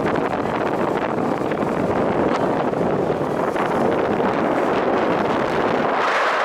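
Wind buffeting the microphone aboard a moving sightseeing boat: a steady rushing noise that turns into a thinner, higher hiss near the end.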